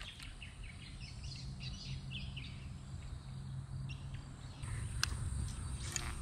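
Outdoor river ambience: scattered bird chirps and a steady high insect drone over a low rumble. The drone grows louder about two-thirds of the way through, and a couple of light clicks come near the end.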